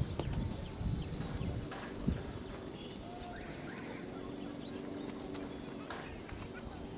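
Steady high-pitched drone of insects calling in the grass and trees, over faint outdoor background noise.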